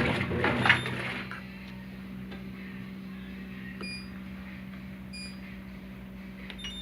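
Brastemp Ative 11kg washing machine agitating with a churning, sloshing noise that stops about a second in. A steady low hum follows, broken by a few short electronic beeps, two in the middle and one near the end.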